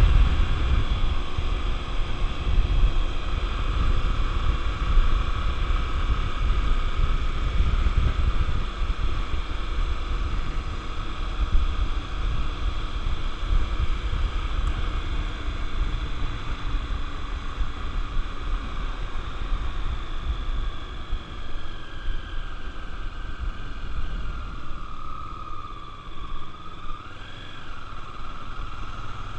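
Honda XR250 Tornado's single-cylinder engine running on the move, under heavy low wind rumble on the microphone; it grows quieter and the engine note shifts in the last third.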